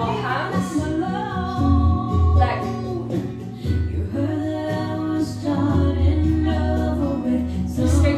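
Background music: a song with a singer's voice over a repeated bass line.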